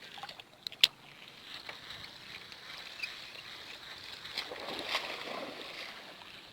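Faint water sloshing and lapping, with one sharp click just under a second in.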